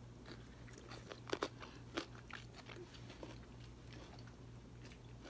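Crunching bites and chewing of Kool-Aid-soaked dill pickles, with a few sharper crunches about a second and a half and two seconds in. A faint steady low hum underneath.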